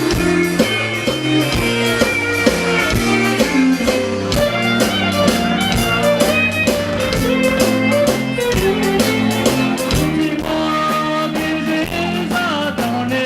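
A live band playing an upbeat number with electric guitar, bass and drums on a steady beat, with a sustained lead line coming in about ten seconds in.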